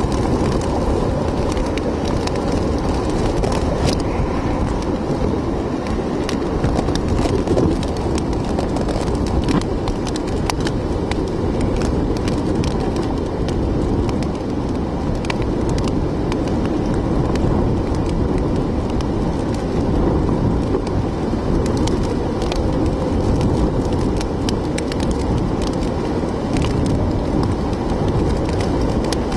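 Hurricane-force wind and driving rain: a steady, heavy rumble of wind with many sharp raindrop ticks scattered through it, heard through the rain-spattered glass of a vehicle.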